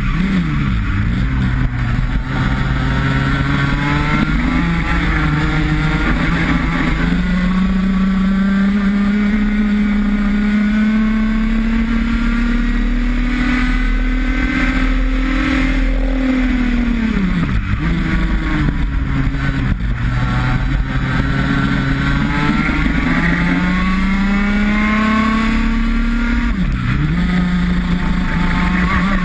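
IAME X30 125 cc two-stroke kart engine at racing speed, its pitch climbing slowly on the straights and dropping sharply three times as the throttle is lifted for corners.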